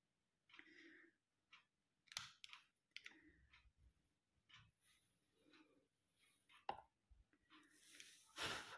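Near silence with a few faint clicks and taps from a lighter and incense sticks being handled. Near the end comes a short puff of breath, blowing out the flame on the lit incense stick.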